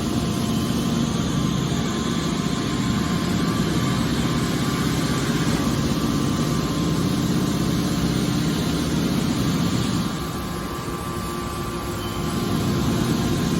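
Aluminum can baler running: a steady machine hum with a few steady tones, easing off a little about ten seconds in and picking back up near the end.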